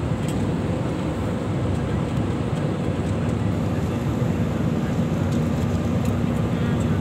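Steady jet airliner cabin noise in cruise, heard from inside the passenger cabin: an even rush of engine and airflow noise, heaviest in the low end. A low steady hum joins it about halfway through.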